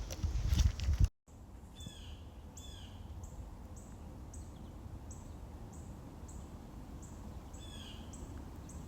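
Birds chirping: a run of short, high, downward-sliding chirps repeating about twice a second, with an occasional lower chirp phrase, over a steady low rumble. The sound drops out completely for a moment about a second in.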